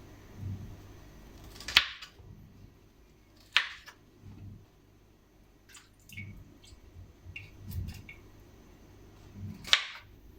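Kitchen knife cutting vegetables on a chopping board: a few sharp knocks at uneven intervals, the loudest about two seconds in, another near four seconds and one near the end, with lighter ticks and soft low thuds between.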